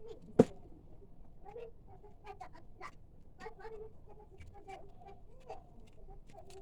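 A single sharp click about half a second in, then scattered light clicks and taps, typical of small parts and tools being handled. Faint short calls of a domestic animal are in the background.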